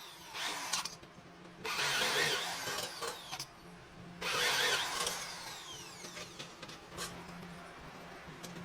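A power tool run in two bursts of about two seconds each, winding down with a falling whine after the second, over a steady low hum.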